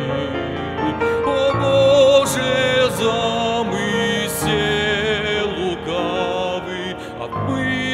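A man singing a slow Russian hymn solo over instrumental accompaniment, with long held notes that waver with vibrato.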